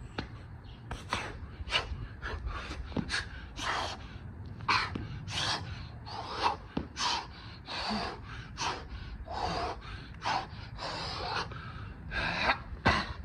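A man breathing hard and gasping, about two heavy breaths a second, out of breath from a set of burpees.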